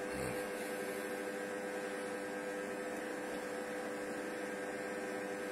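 Cecotec Mambo 8590 kitchen robot running with its lid closed, cooking at 100 °C on speed 1: a steady hum with a constant tone.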